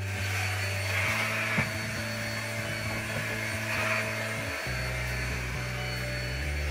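Steady rushing wind on an open yacht deck at sea, swelling and easing, over background music of held low notes that change every few seconds.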